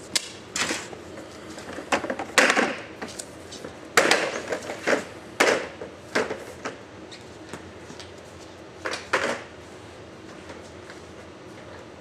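Irregular knocks and clatters of a bundle of long EcoStud wall studs being picked up, stood on end and carried, with most of the knocks in the first half and a last pair about nine seconds in.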